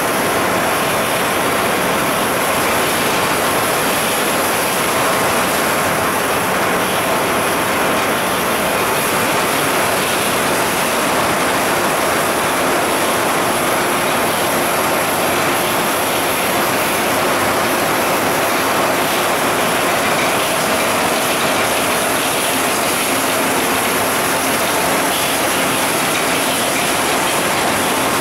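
Beverage canning line rated at 23,000 cans per hour running at production speed: a steady, unbroken din of cans clattering along the conveyors and through the machines, mixed with machinery noise.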